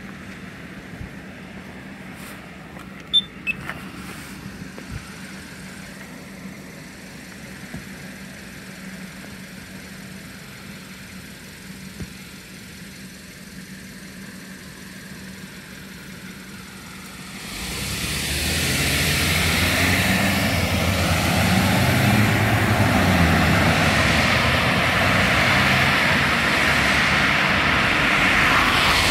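Road traffic at a signalled intersection. A quiet stretch with a steady low hum and a few light clicks gives way, about two-thirds in, to cars and a pickup truck driving off and passing close by, which stays loud to the end.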